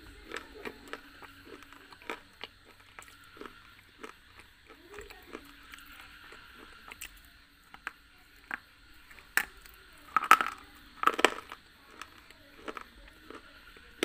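Close-miked biting and chewing of a crumbly white chalky block: scattered sharp crunches and snaps, the loudest cluster of bites about nine to eleven seconds in.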